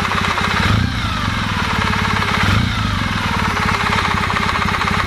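Kawasaki W650 air-cooled parallel-twin engine idling with a knock from the camshaft gear. The sound swells briefly twice as the setting is turned back and forth; the knock grows or shrinks with the direction of the turn.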